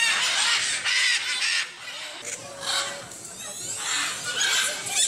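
Macaws squawking: loud, harsh calls, a long stretch at first and then two more bouts.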